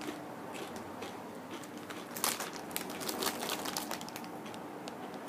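Kettle-cooked potato chips crunching as they are chewed: a scatter of crisp, irregular crackles, busiest about two to three and a half seconds in.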